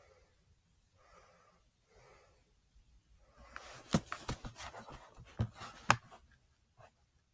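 A person bouncing on a trampoline mat and jumping into a pit of foam cubes: a burst of thuds and rustling clatter from about three and a half seconds in, with the two loudest thuds about two seconds apart, then a few small knocks. Before it, faint breathy sounds.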